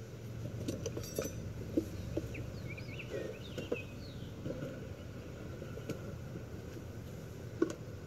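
Wooden beehive box being handled and set onto its stand: a series of light knocks and clunks, the sharpest near the end as the box comes down.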